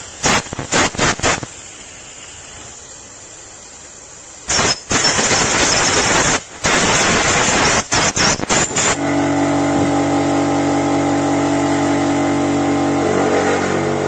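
Compressed-air blow gun blowing out a drilled thread hole in aluminium: a few short blasts, then a longer spell of blowing broken by brief pauses. About nine seconds in, a steady motor hum with several tones sets in and keeps running.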